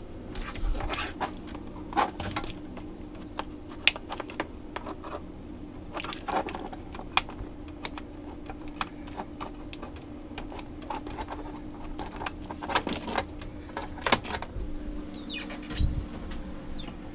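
Scattered clicks and rustles of hands handling and plugging in a TV power cord, over the steady hum of a Fantastic Fan roof vent fan running on its middle speed.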